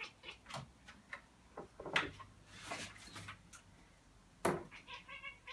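Irregular sharp knocks and clicks, the loudest about four and a half seconds in. A quick run of short chirps from a house cat chattering follows near the end.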